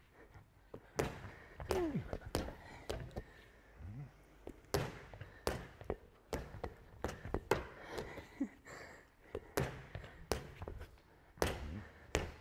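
A light volleyball-type ball bouncing on a table tennis table and being struck by hand in a rally, an irregular series of sharp knocks. Short vocal sounds from the players come in between.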